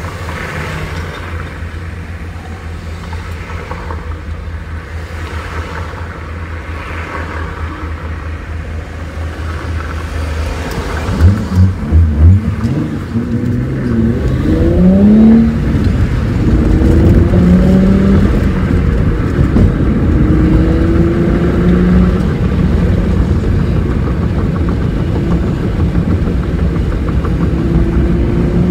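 Infiniti G37's 3.7-litre V6 with an Ark Grip exhaust and Mishimoto intake tubes, heard inside the cabin: a steady low drone while rolling slowly, three short revs about eleven seconds in, then several rising pulls as the car accelerates through the gears.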